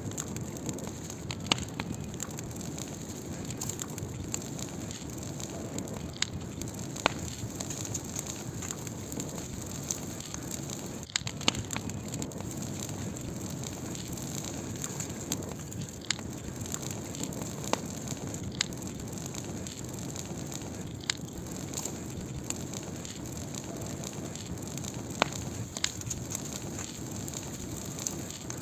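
Wood fire burning: a steady low rush of flames with sharp, irregular crackles and pops from the firewood.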